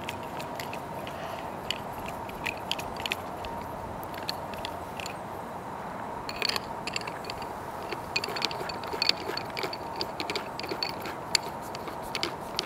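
Scattered small clicks, ticks and scrapes of paintball markers and parts being handled, busier in the second half, over a steady faint hum. No marker is fired.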